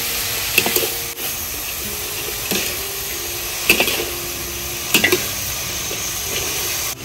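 Jicama sizzling steadily as it is stir-fried in a pan, with a spatula scraping and knocking against the pan about five times.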